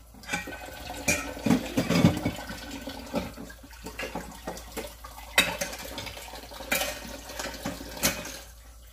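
Water running from a kitchen tap while a utensil is rinsed at the sink, with repeated knocks and clatters of kitchenware against the sink.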